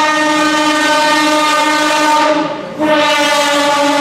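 Limited express train's air horn sounded twice at full volume, very loud: one long steady blast of a single pitch, a half-second break, then a second blast.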